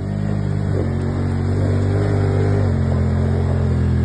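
ATV engine running steadily under load as the quad climbs a rocky trail in low range, its pitch dipping slightly about two-thirds of the way in.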